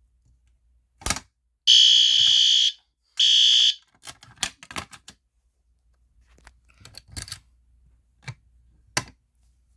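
Fire alarm horn strobe sounding two loud, high-pitched blasts, the first about a second long and the second about half a second, set off from a pull station. A click comes just before the blasts, and scattered clicks and knocks follow as the pull station is handled and reset.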